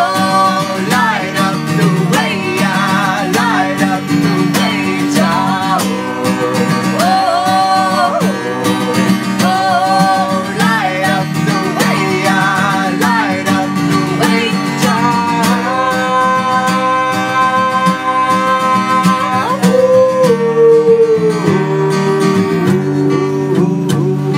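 A man's and a woman's voices singing over a strummed acoustic guitar, with long held notes that waver in pitch.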